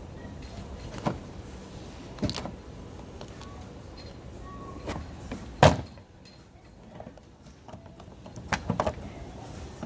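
Mercedes CLS exterior front door handle being pulled and worked by hand to release it, giving a series of sharp plastic-and-metal clacks. There is a single loud clack in the middle and three quick clacks near the end, over a steady low rumble.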